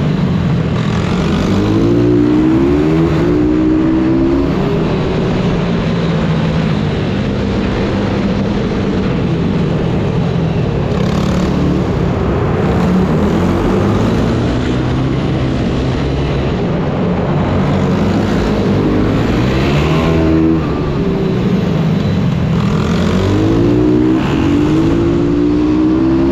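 Single-cylinder four-stroke pit bike engines revving up and down, the pitch dropping into each corner and climbing again on the throttle out of it, with sharp rises about two seconds in, around twenty seconds and near the end.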